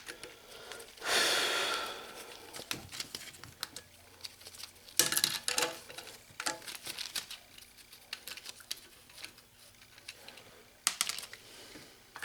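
Scattered light clicks and clinks of a broken 1/2-inch ratchet and its metal parts being handled, with a louder rustling burst about a second in and a cluster of clicks around the middle.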